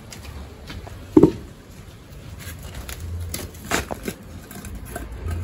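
Scattered knocks and light clatter of kitchen food-preparation handling, with a sharper knock about a second in and another near four seconds.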